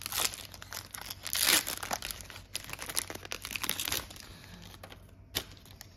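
Foil wrapper of a Pokémon trading-card booster pack being opened by hand, crinkling and crackling, loudest about a second and a half in. The rustling thins out over the last two seconds, with one sharp click near the end.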